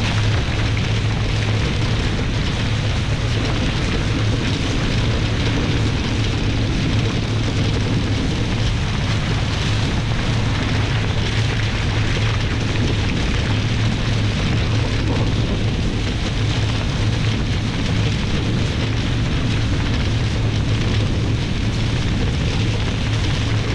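Steady, loud rush of wind buffeting the microphone and water hissing along the hulls of a Nacra 20 catamaran sailing fast downwind under spinnaker, with a constant low rumble beneath.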